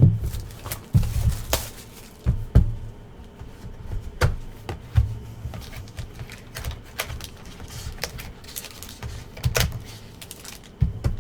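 Irregular clicks, taps and knocks with light rustling: a sealed box of trading cards being unwrapped and opened by hand and its packs handled on a table.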